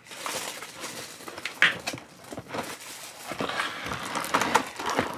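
Plastic packaging crinkling and rustling, with scattered clicks and scrapes, as a new keyboard is unwrapped from its box.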